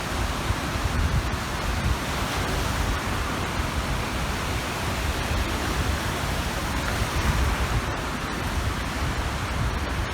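Waves washing onto the shore of a large reservoir in a steady wash of surf noise, with wind gusting on the microphone.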